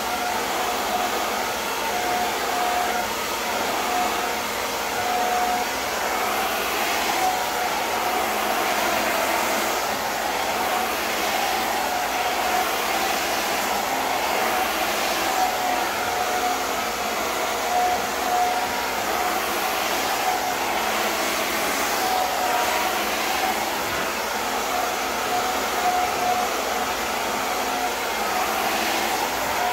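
Handheld hair dryer blowing steadily, a loud even rush of air with a thin whine that comes and goes.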